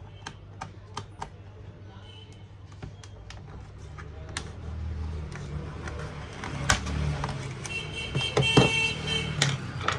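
Plastic clicks and handling noise as the laptop's battery latches are slid and the battery is pulled out of its bay. The scraping and rubbing grow louder in the second half.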